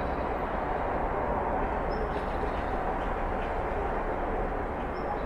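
Backyard outdoor ambience: a steady, even rumble of distant background noise, with two brief faint high peeps about two seconds in and near the end.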